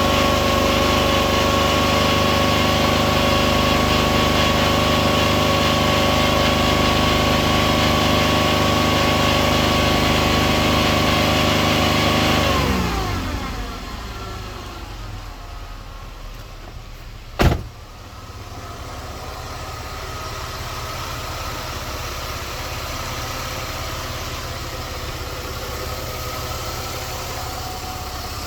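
Buick 3.8 V6 engine held at a raised, steady speed, then settling down to a lower, quieter idle about 12 seconds in, with one sharp click a few seconds later. The owner says the engine's ticking noise is gone since Marvel Mystery Oil was added.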